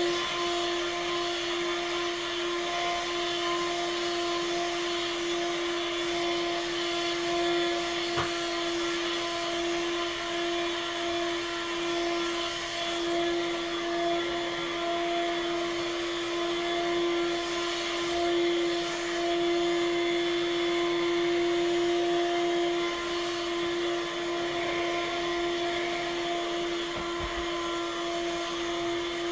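Vacuum cleaner running steadily as a floor is vacuumed: a constant motor hum and whine over rushing air. There is one small knock about eight seconds in.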